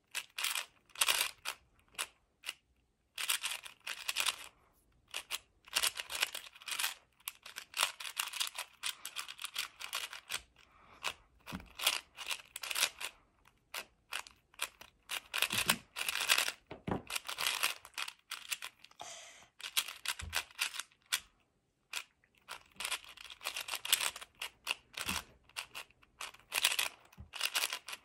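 A MoYu AoSu 4x4 speedcube being turned fast by hand: rapid runs of plastic clacking and clicking as the layers turn, broken now and then by short pauses.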